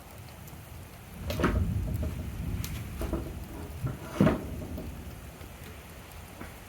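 Thunderstorm: rain falling, with a low rumble of thunder rising about a second in and fading over the next few seconds. A few sharp cracks or taps come through it, the loudest a little past four seconds in.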